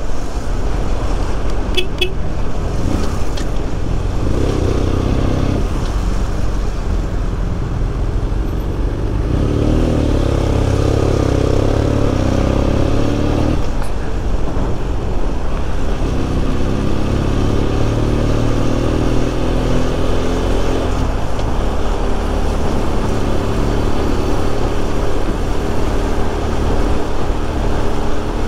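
BMW F800's parallel-twin engine running under way through slow city traffic, its revs rising and falling as the rider accelerates and eases off between cars, over a steady low road and wind rumble. A brief high beep sounds about two seconds in.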